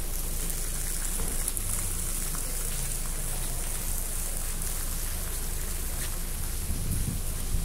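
Steady rain-like hiss, heaviest in the high end, with a low rumble underneath.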